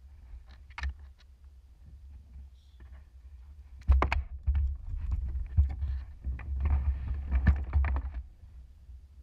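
A few light clicks, then about four seconds in a dense run of dull thumps, knocks and rustling with a deep rumble, stopping about four seconds later: a person shifting about in a fishing kayak and handling gear against its plastic hull.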